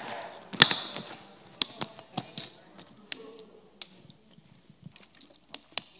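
Scattered sharp taps and clicks, loudest in the first two seconds and sparser after, over a faint murmur of a congregation saying something to their neighbours.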